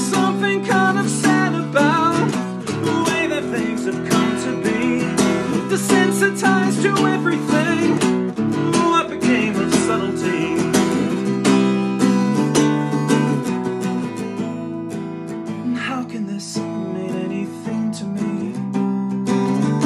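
Acoustic guitar strummed in a driving, rhythmic instrumental passage, with fast repeated strokes over ringing chords.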